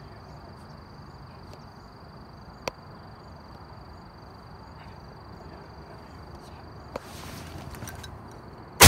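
Quiet marsh ambience with a faint steady high-pitched whine and a single sharp click about a third of the way in, then one loud shotgun blast near the end.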